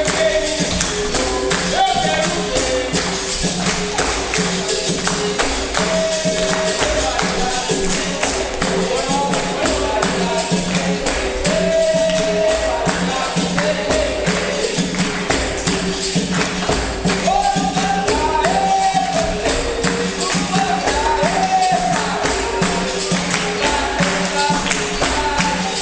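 Capoeira roda music from the bateria: pandeiro and other percussion keeping a steady driving rhythm under repeating low plucked-string notes, with voices singing a melodic line over it.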